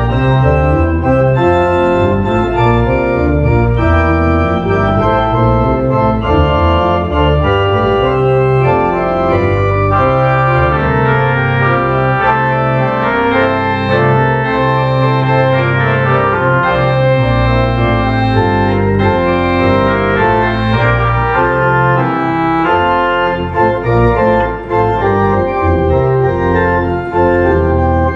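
Church organ playing a piece in full sustained chords over held pedal bass notes, the chords changing every second or so.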